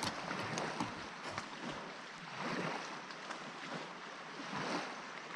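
Small waves lapping against the inflatable hull of an Alpacka Mule packraft drifting on a lake, in soft swells about every two seconds, with light wind on the microphone.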